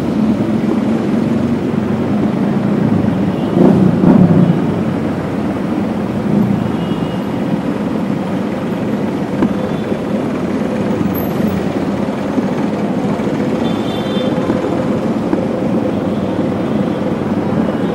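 Steady rush-hour road traffic on a busy city avenue, with a louder vehicle passing about four seconds in.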